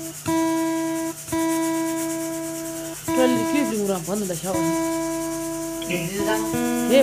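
Acoustic guitar plucked repeatedly, the same note or chord ringing out and slowly fading each time. About three seconds in, and again near the end, a voice hums a wandering melody over it.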